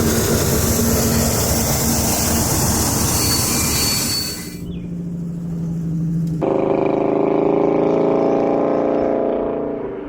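Loud rush of a passing freight train, cut off suddenly about four and a half seconds in. After a further abrupt cut, a locomotive gives a steady pitched drone that stops near the end.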